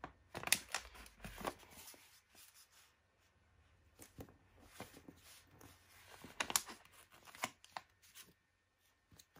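Glossy paper sticker sheet and magazine pages rustling and crinkling as stickers are peeled off and pressed on, in short, irregular rustles and clicks with brief quiet gaps.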